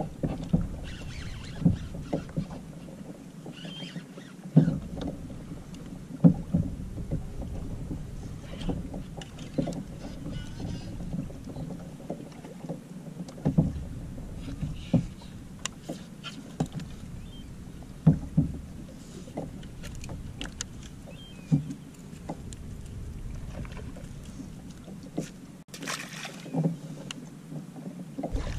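Water lapping against a Hobie Outback fishing kayak's plastic hull, under a steady low rumble, with many scattered sharp knocks and clicks from gear and rod handling on the hull.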